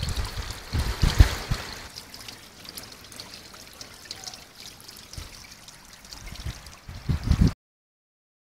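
Water trickling into a garden pond, a steady hiss, with low thumps on the microphone in the first second or so and again just before the sound cuts off suddenly.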